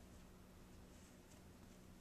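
Near silence: faint steady room hum with a few soft, faint scuffs.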